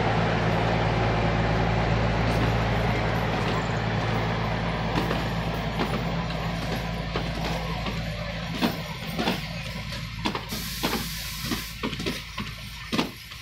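Narrow-gauge diesel locomotive's engine running steadily as the train passes, fading away as the coaches roll by. From about eight seconds in, the coach wheels clack over the rail joints in a steady rhythm.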